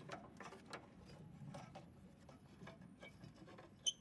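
Faint rubbing and small clicks of a gloved hand working a V-belt around a snowblower's attachment pulley, against the metal brake-shoe piece and housing. A brief high chirp cuts in near the end.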